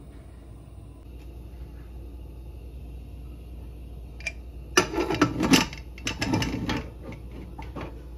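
Metal clanks and clatter of an aluminium pressure cooker and its lid being handled and closed, in a cluster of knocks starting about five seconds in and lasting about two seconds, over a low steady hum.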